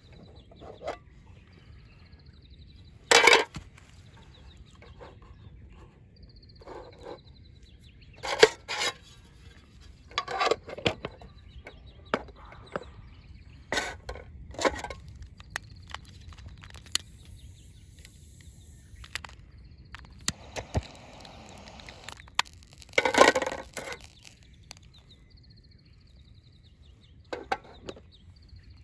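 Scattered knocks and clinks, a dozen or so separate strikes with the loudest about three, eight and twenty-three seconds in, and a softer stretch of scraping or rustling a little past the middle.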